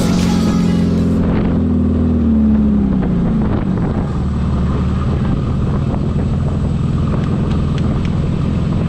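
Polaris RZR Pro R's four-cylinder engine running, its pitch dropping between about two and three seconds in as it comes off the throttle, then holding steady. Rock music cuts off about a second in.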